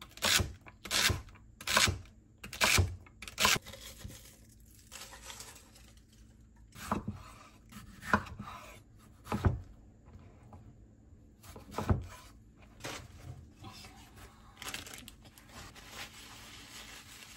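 Chef's knife chopping celery on a wooden cutting board, five quick knocks of the blade against the board in the first few seconds. Then a few single knife strokes through a tomato, each ending in a knock on the board, and near the end the rustle of paper towel being handled.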